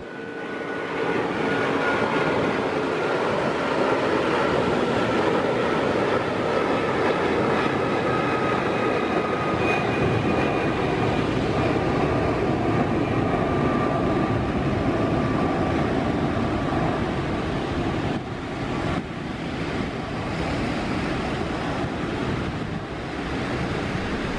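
Jet engines of a Thai Airways Airbus A330-300 climbing out after takeoff: a loud steady rush with whining tones that slowly fall in pitch as the airliner passes and draws away.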